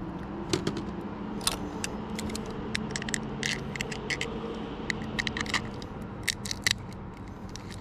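Boiled Dungeness crab shell being cracked and picked apart: a run of sharp snaps and clicks, over a steady low hum.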